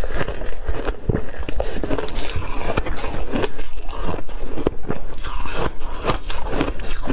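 Close-miked crunching and chewing of block ice coated in matcha powder: a dense, irregular run of sharp cracks and crackles.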